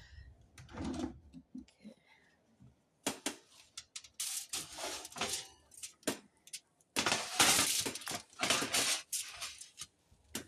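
Dishes and cutlery clattering in a run of knocks, clinks and scrapes, coming in two bursts. The second and loudest starts about seven seconds in.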